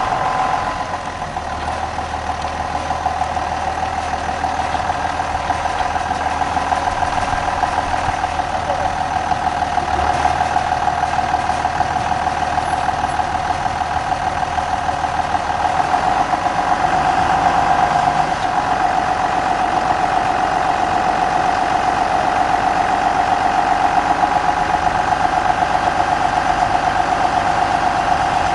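Tractor diesel engine running steadily while its hydraulics lift and tip the high-dump grain hopper for side unloading, with a steady mid-pitched whine over the engine. A low hum under it stops about halfway through.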